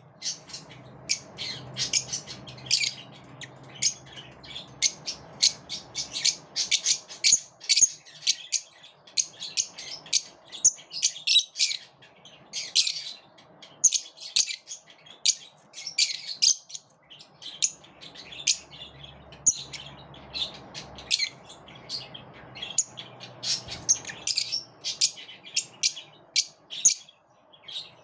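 A group of lovebirds chirping: many short, high, sharp calls a second, overlapping almost without a break, thinning briefly about two-thirds of the way through.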